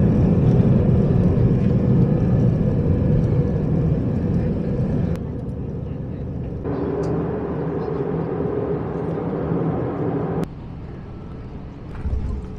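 Jet airliner cabin noise heard from a window seat: a loud, steady roar and rumble of the engines at takeoff thrust on the runway and in the climb. After several abrupt edits it drops to a quieter cabin noise, with a brief low rumble near the end as the jet rolls out on the runway after landing.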